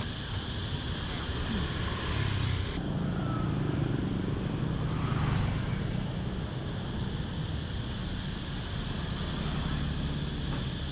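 Street traffic: vehicle engines running and passing, with a steady hum and road noise that swells for a few seconds about a third of the way in.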